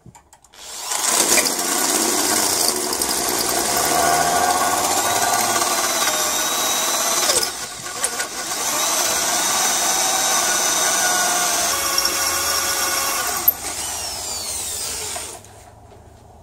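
Electric drill at low speed boring an 11/32 bit into the head of a seized, high-tensile T50 Torx bell-housing bolt on a 4L60E transmission, the bit squealing against the hard steel with a wavering pitch. It runs in two long spells with a short break about halfway, and stops about a second before the end.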